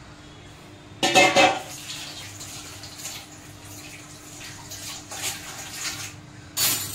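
Water running from a kitchen tap into a stainless steel sink, splashing as hands are rinsed. There are two louder bursts, one about a second in and one near the end.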